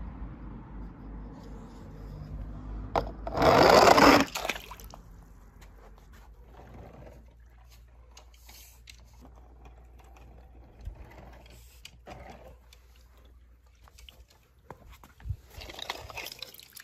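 A small toy car dropped into a swimming pool, one short splash about three and a half seconds in, then faint water movement. Near the end there is light rustling and scraping as toy cars are scooped in a mesh pool net.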